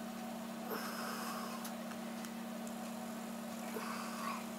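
Faint clicks and scrapes from a small screwdriver working a tiny screw out of an iPad 2's LCD, heard about a second in and again near the end, over a steady low hum.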